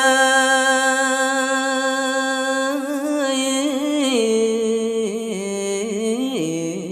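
A man's voice chanting Khmer smot, the melismatic Buddhist chant, sustaining long notes with wavering ornaments. The pitch steps down about four seconds in and again near the end.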